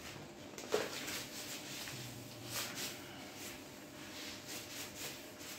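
Whiteboard wiped with a cloth: soft rubbing strokes repeating in quick succession, with a single knock against the board about a second in.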